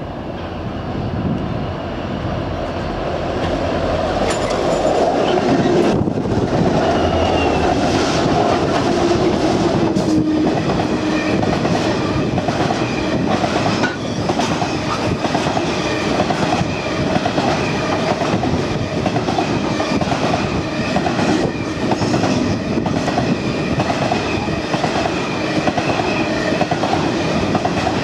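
Freight train passing close by: G-class diesel locomotive G513 draws near and past, growing louder over the first few seconds with its pitch sliding down, then a long string of grain hopper wagons rolls by. The wagons make a steady clickety-clack of wheels over the rail, with a thin high whine from about ten seconds in.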